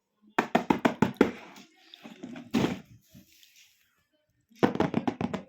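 A quick run of sharp taps or knocks on something hard, then a second run near the end, with a softer rustle in between.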